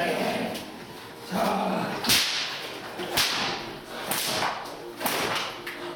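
Several sharp slapping cracks about a second apart from a protection decoy's hand-held stick, swung and struck during bite work with a young Staffordshire bull terrier.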